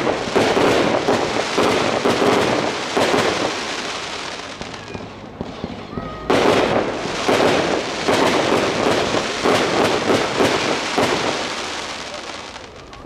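Fireworks bursting into crackling stars, a dense rapid crackle that fades out. A second wave of crackling starts suddenly about six seconds in and dies away near the end.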